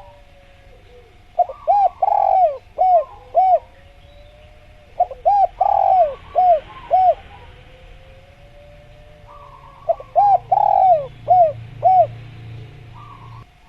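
Spotted dove (tekukur) cooing its song three times, each phrase a run of about five low coos with a longer note near the middle, about four seconds apart. Fainter chirps of other birds come between the phrases.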